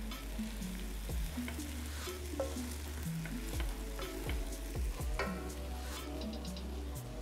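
Rice frying in a hot non-stick wok, sizzling as a spoon turns it over and scrapes the pan in repeated short strokes. Background music plays underneath.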